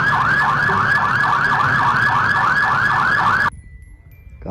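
Electronic fire-engine siren in a fast yelp, its pitch sweeping down and back up about four times a second. It cuts off abruptly near the end.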